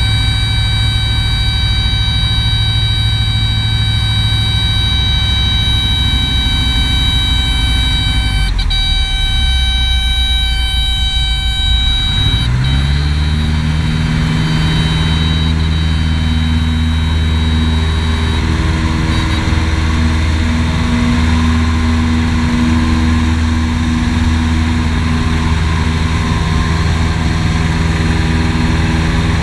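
Piper PA-18 Super Cub seaplane's engine heard from inside the cockpit, running at low power with a steady high-pitched tone over it. About twelve seconds in the engine is throttled up, its pitch rising to a steady higher note for the climb away from the water.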